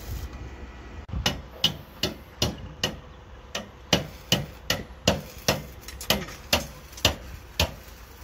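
Hammer blows on construction formwork, about seventeen sharp strikes with a short ring, two to three a second, starting about a second in.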